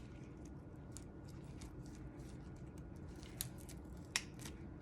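A blade cutting through the skin and toe joint of a wolf's foot: faint scattered clicks and scraping, with two sharper clicks at about three and a half and about four seconds in.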